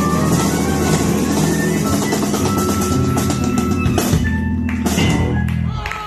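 Live electric blues band playing the closing bars of a song, with drum kit fills and cymbal hits under guitar and bass. About four seconds in the band plays a few stop hits, and the last chord fades out near the end.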